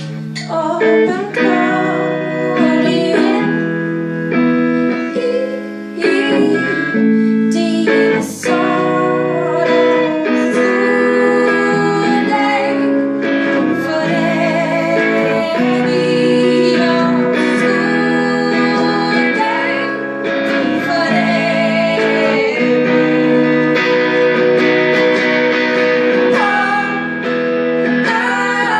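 Live music: a woman singing over a plucked-string accompaniment.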